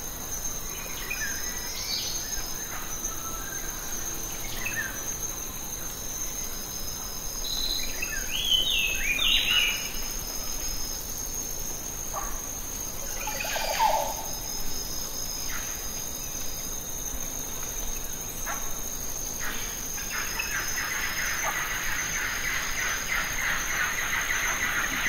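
Outdoor ambience of insects trilling steadily at a high pitch, with birds calling in short rising chirps, busiest about eight to ten seconds in and again around fourteen seconds. Near the end a denser, rasping buzz builds up.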